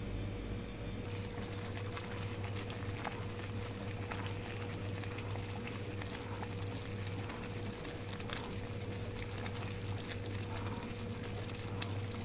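Thick makhani gravy of tomato, butter and cream simmering in a pan, with many small scattered pops of bursting bubbles and the scrape of a spatula stirring it, over a steady low hum.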